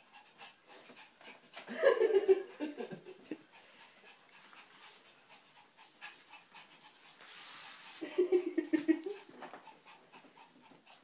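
A dog panting while tussling over a toy, with two short louder noises about two seconds in and again around eight seconds.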